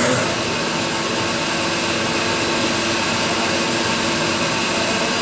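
Milling machine running steadily: an even whirring hiss with a steady hum.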